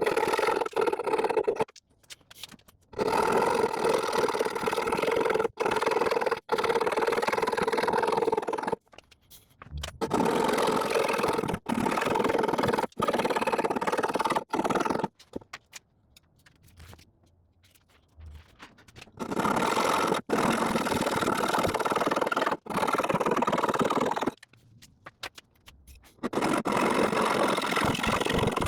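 Hand saw cutting through wood in stretches of a few seconds, with short pauses and abrupt breaks between them.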